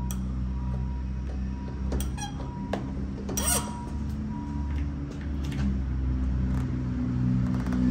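Short squeaks and sharp clicks of metal fittings as plugs are tightened into a brake master cylinder's ports during bench bleeding, over a steady low hum. A faint steady high tone runs for the first five seconds.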